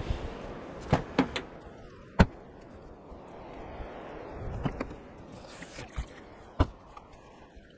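Scattered sharp knocks and clunks from gear being handled at the open back of a four-wheel drive, about eight of them over several seconds, over a steady background hiss.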